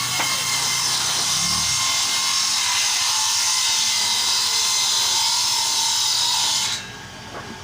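Woodworking machine cutting through a timber board: a loud, dense hiss with a steady high whine that stops abruptly near the end as the cut finishes.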